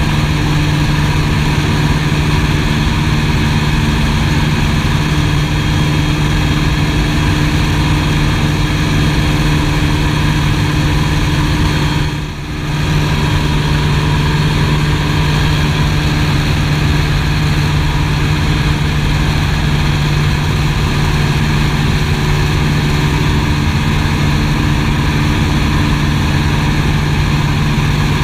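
Piper PA-18 Super Cub's piston engine and propeller droning steadily in flight, heard inside the cockpit, with a brief dip in level about twelve seconds in.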